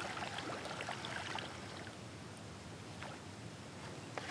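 Faint lapping and trickling of water around a kayak, with a few light clicks scattered through, busier in the first second or so.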